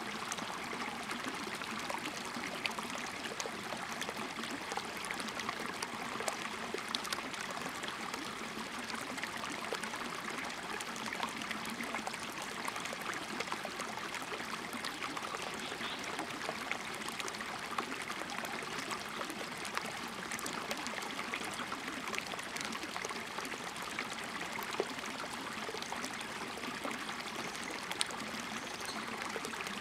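Shallow rocky stream flowing and trickling over stones, a steady rush with small scattered ticks of water.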